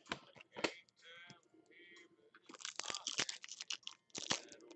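Foil wrapper of a trading-card pack being torn open by hand. A few light clicks come first, then a dense crackle of tearing and crinkling foil fills the last two seconds or so.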